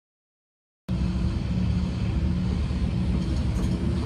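Silence, then about a second in a diesel engine of heavy construction machinery starts being heard, running steadily with a low, even rumble and a steady hum.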